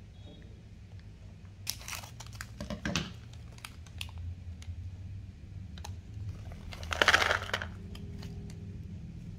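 Foil-and-plastic condiment sachets for an instant noodle cup crinkling and rustling as they are handled, torn open and emptied. Peanuts are tipped from their sachet into the cup. The crackling comes in scattered bursts, loudest about seven seconds in, over a steady low hum.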